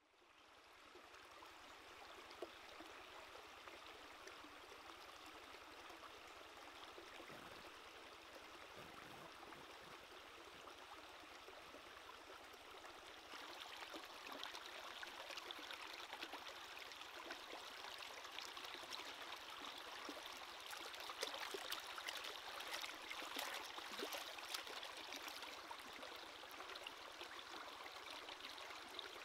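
Shallow stream water running over rocks, fading in at the start and growing louder about halfway, with light splashes and wet handling as a squid is rinsed and pulled apart in the water.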